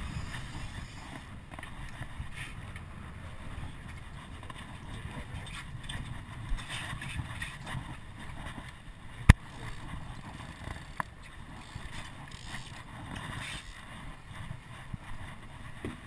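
Low, steady wind and water noise on a boat at sea, with one sharp click about nine seconds in.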